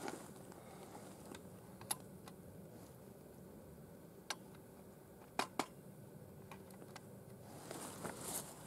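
Quiet background with a few small, sharp clicks: one about two seconds in, another just past four seconds, and a close pair about five and a half seconds in.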